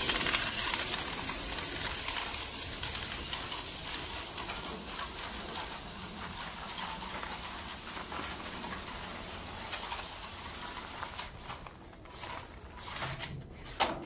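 Small RC truck's tyres crunching and rattling over loose crushed gravel, a dense crackle of little stones. It fades as the truck drives away, with a few sharper crunches near the end.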